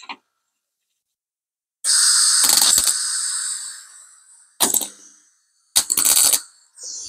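MIG welder stitch-welding a sheet-steel repair patch: three bursts of arc crackle, the first about a second long and trailing off, then two short ones about a second apart.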